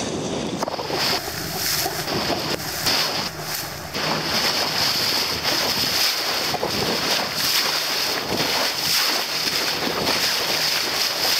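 Wind buffeting the microphone and water rushing along the hull of a small boat under way on open sea, a steady noise with no clear engine note.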